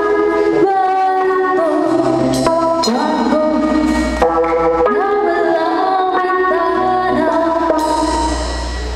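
Live rock band performing: a female lead vocalist singing over electric guitars, bass, keyboard and drums, the chords held and changing every second or so.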